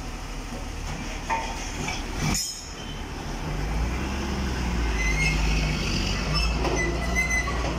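Truck-mounted crane's engine running under load with a steady low drone that comes up about three and a half seconds in. Short high squeals come through a couple of times near the end.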